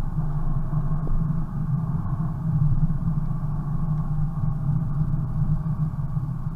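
Car engine drone and tyre noise on a snowy road, heard from inside the cabin: a steady low hum.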